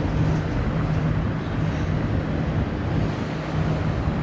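Freight train rolling past: a steady rumble of railcars on the rails, with a low hum that comes and goes.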